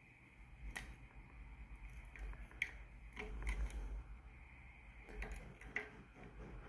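Scattered faint clicks and light metal taps of small parts being handled: the filter screen being fitted back into a brass pressure washer pump by hand, over a low rumble.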